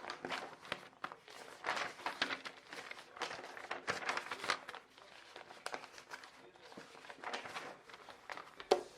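Irregular rustling and clicking handling noises, coming in short uneven bursts.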